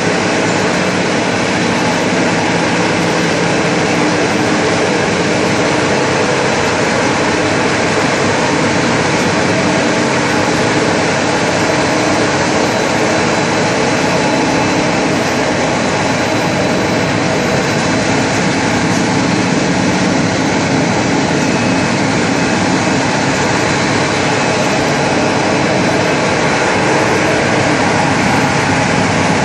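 1000B wire bunching machine line running: a steady, loud mechanical noise from the machinery, unbroken throughout.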